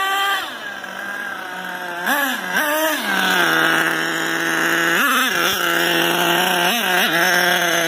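HPI Savage 25 nitro RC monster truck's small glow-fuel engine dropping from a run to idle, then idling with four short throttle blips, each a quick rise and fall in pitch.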